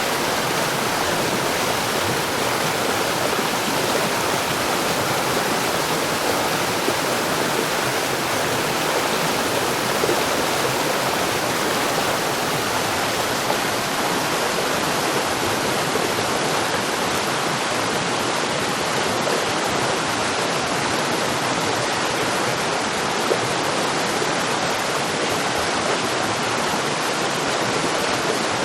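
Flowing water rushing steadily, a continuous even wash like a stream or small waterfall.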